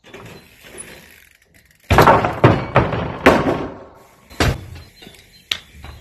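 A run of sharp, loud thumps and knocks, about five heavy ones from about two seconds in, then a few lighter knocks near the end.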